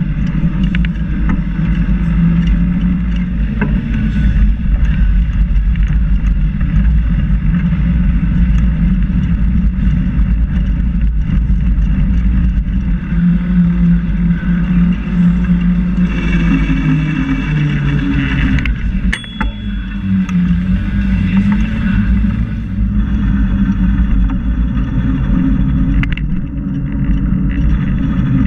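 Continuous loud low rumble of riding along a paved trail, with a wavering hum that rises and falls, from the moving ride and the air rushing past the camera's microphone. It dips briefly about 19 seconds in.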